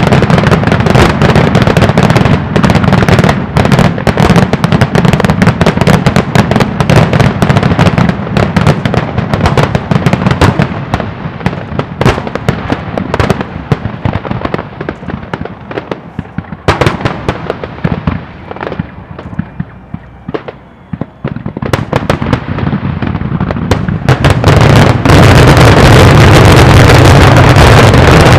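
Fireworks finale: aerial shells bursting in rapid, overlapping bangs and crackles. The bursts thin out past the middle to scattered pops with a short lull, then come thick again near the end, running together into a loud, nearly continuous barrage.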